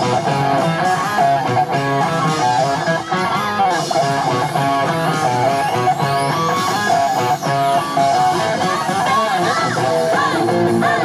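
Loud, steady music in which guitar playing dominates, a continuous run of plucked guitar notes.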